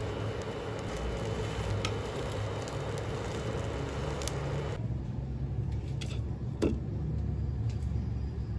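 Buttered bread frying in a small rectangular pan, sizzling and crackling, with light clicks of a metal spoon pressing on it. About five seconds in the sizzle cuts off abruptly, followed by a couple of sharp knocks.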